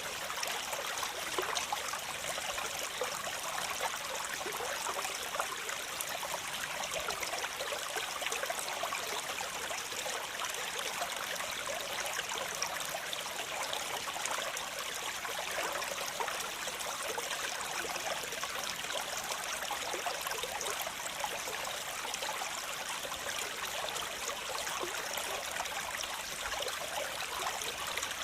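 Waterfall: a steady rush of falling, splashing water, mostly hiss and spatter with little low rumble.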